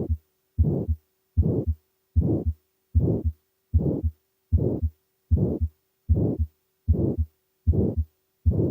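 Heart sounds of aortic stenosis: a systolic murmur fills the span after each first heart sound and ends at a short, sharp second heart sound. The beats repeat at a steady rate of a little under 80 a minute, with silence between them.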